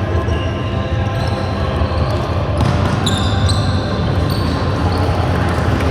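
Indoor ultimate frisbee play: players' feet thudding and shoes squeaking in short, scattered chirps on a sports hall floor, over a steady hall rumble and background chatter.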